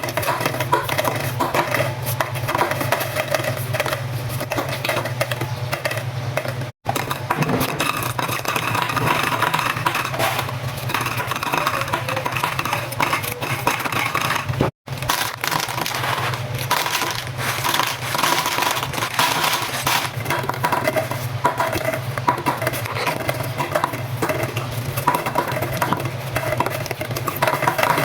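Plastic drinking straws falling and clattering against each other in a dense, continuous rattle of light clicks, with a steady low hum underneath. The sound drops out completely twice, very briefly.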